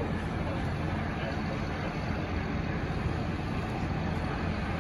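Steady low engine rumble with a constant hum underneath, unchanging throughout.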